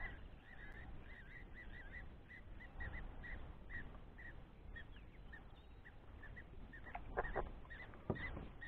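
A bird calling with short, evenly repeated notes, about three a second, faint over the open water. A few knocks come near the end.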